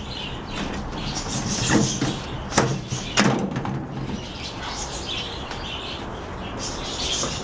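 Knocks and clicks of hands and tools on a microwave oven's metal casing as its cover comes off, three sharper knocks in the first few seconds, over repeated high chirping in the background.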